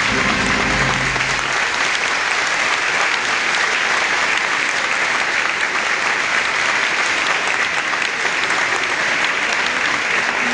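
A large crowd applauding steadily and densely. The held notes of music end about a second and a half in, leaving only the clapping.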